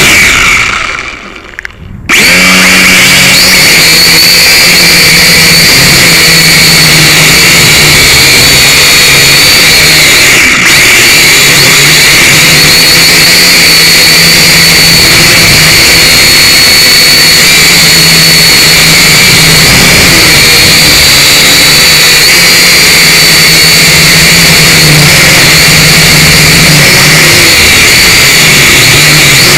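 Syma X5C quadcopter's small motors and propellers whining, heard up close through its onboard camera's microphone, steady and high with lower tones that waver as the throttle changes. Near the start the motor noise drops away for about a second, then cuts back in abruptly.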